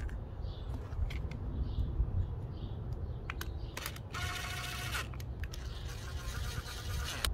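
Cordless drill-driver whirring in two short runs, the first about four seconds in and the second near the end, driving the screws that fasten the mounting bracket to a boat's fish-finder transducer. A few light clicks of parts being handled come before it.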